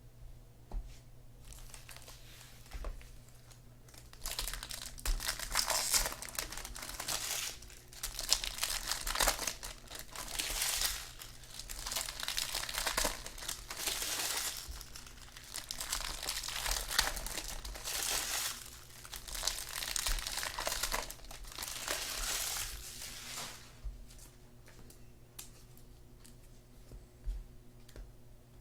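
Trading-card pack wrappers being torn open and crumpled: a run of crinkly, tearing bursts that starts about four seconds in and stops a few seconds before the end, with quiet card handling before and after.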